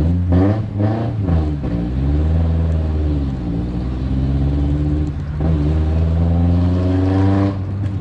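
Volkswagen Saveiro pickup's engine accelerating hard. Its pitch climbs, drops with a gear change about five seconds in, then climbs again until it eases off near the end.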